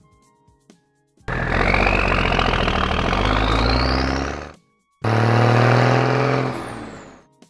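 Sound effects for a cartoon truck over light background music. About a second in comes a loud, noisy whoosh with a whistle rising in pitch as the truck speeds off. After a brief gap, a steady, low engine-like hum starts up, and its pitch sinks as it fades near the end.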